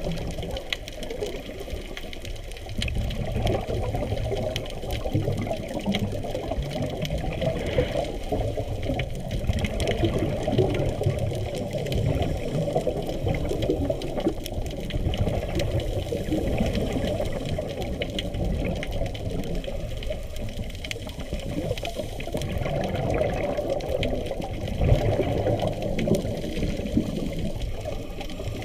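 Underwater water noise heard through a camera's waterproof housing: a continuous muffled, low rushing and bubbling that swells and eases irregularly.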